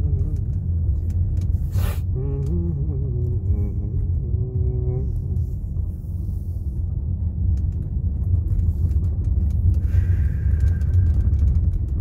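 Steady low rumble of a car driving down a narrow mountain road, heard from inside the cabin: engine and tyre drone.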